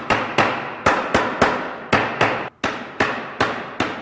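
Hammer striking wood repeatedly, about three blows a second, each a sharp knock with a short ring, driving a tight-fitting wooden floor panel down into the planter base.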